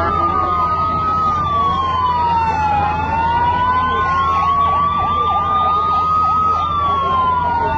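Several emergency sirens wailing at once, the loudest slowly rising and falling in pitch about every five seconds, with other sirens overlapping it and a steady low rumble underneath.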